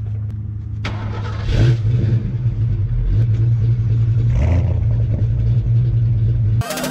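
Car engine idling through its exhaust, revved in two short blips about one and a half and four and a half seconds in, then cutting off suddenly near the end.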